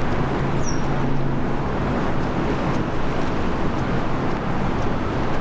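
Steady outdoor city ambience, a constant traffic-like rumble, with a brief high chirp about a second in.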